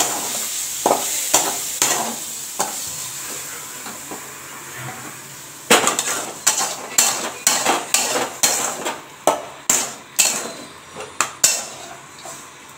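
Steel spatula stirring paneer stuffing in a hot steel kadai, with a faint sizzle from the pan just taken off the flame. From about six seconds in, a quick run of sharp metal clinks and scrapes, about two a second, as the spatula scrapes the stuffing out of the tilted kadai.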